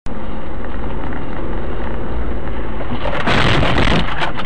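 Dashcam recording of a car driving: steady, loud road and engine rumble. About three seconds in, a louder, rough burst of noise lasting about a second rises over it.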